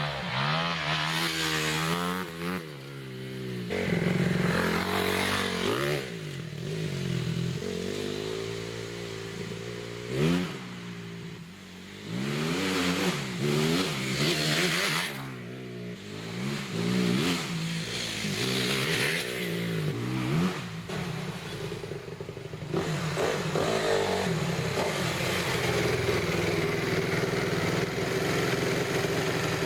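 Dirt bike engine being ridden, its pitch climbing with each acceleration and falling off between them, over and over, with a couple of brief lulls midway.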